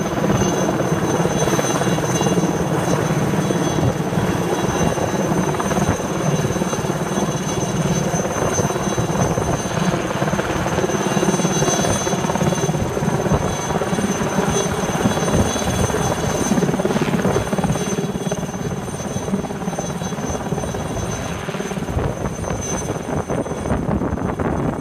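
Helicopter flying low overhead: steady rotor beat with a high turbine whine, easing a little in loudness in the second half.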